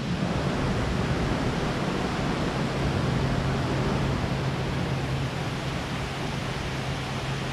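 Steady roar of a large waterfall, Nachi Falls, with a low hum running underneath.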